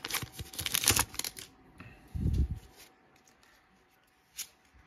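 Foil trading-card pack wrapper crinkling and tearing as it is pulled open, for about a second and a half, then a soft low thump about two seconds in and a faint click near the end.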